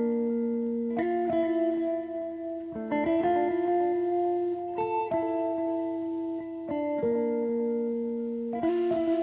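Background music: plucked guitar notes, each ringing on, changing roughly every second or so.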